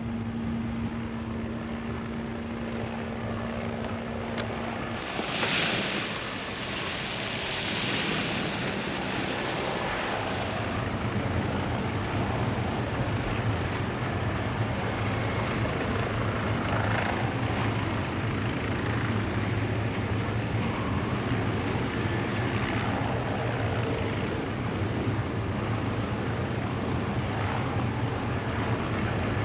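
Aircraft engine droning steadily in flight. A held tone drops out about five seconds in, leaving a broader, even drone.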